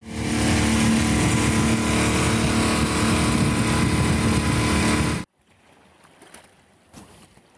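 A small sailing boat's engine running steadily under wind and water noise, cutting off abruptly about five seconds in. After that only a faint background remains, with a few small ticks.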